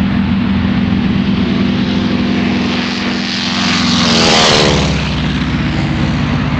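Single-engine radial-engine propeller warbird passing low along the runway. Its engine drone swells to its loudest about four seconds in, and the pitch drops as it goes by.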